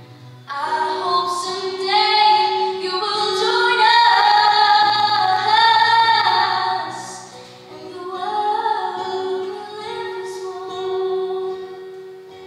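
A girl singing a slow song solo into a microphone, holding long notes; the voice is strongest through the middle and softens after about seven seconds.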